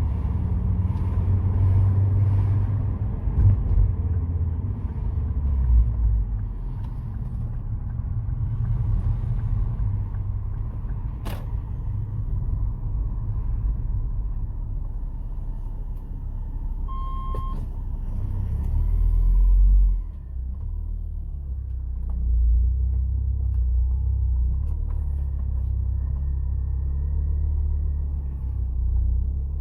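Ford Focus ST225's turbocharged five-cylinder engine and road rumble while driving, breathing through a resonated Mongoose cat-back exhaust that is quite quiet. About two-thirds through the sound builds and then drops off suddenly. There is a short beep just past halfway.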